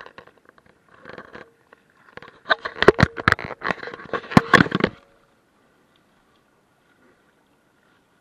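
Handling noise on a wearable action camera: rubbing, scraping and sharp knocks on the camera body and microphone as it is grabbed and adjusted, loudest from about two and a half to five seconds in, then cutting off suddenly.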